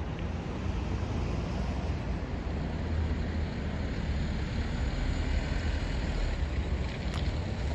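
Steady low rumble of city street ambience outdoors, with a brief faint click about seven seconds in.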